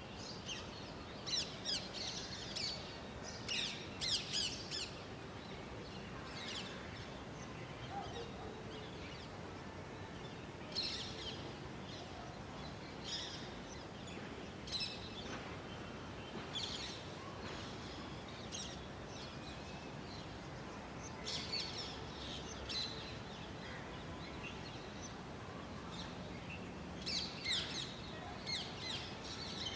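Several small birds chirping in short, high bursts, thickest in the first few seconds and again near the end, over a steady outdoor background hiss.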